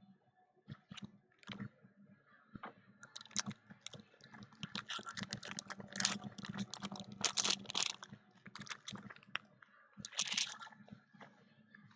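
Trading card packaging being handled and worked open by hand: rapid crinkling and clicking that starts after a few seconds, thickens through the middle with louder rustles, and thins out near the end.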